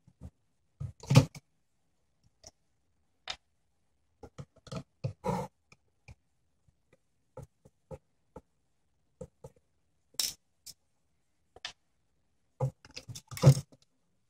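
Scattered clicks and scrapes of a screwdriver working screws out of a CD-ROM drive's metal chassis, with knocks and clatter of plastic and metal parts being handled. Near the end comes a louder burst of clatter as the drive mechanism is lifted out of its plastic frame.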